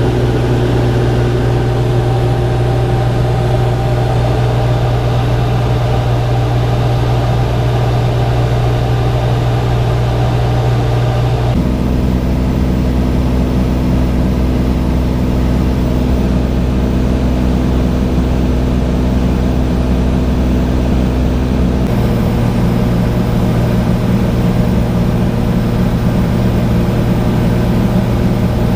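Cessna TTx's single-engine piston powerplant and propeller droning steadily in cruise. The drone's pitch pattern changes abruptly twice, about twelve seconds in and again about twenty-two seconds in.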